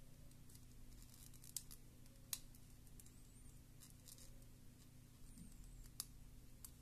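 Near silence over a low steady hum, with three faint, sharp clicks of a small metal tool working on the small plastic and circuit-board parts of a Bluetooth headset being taken apart.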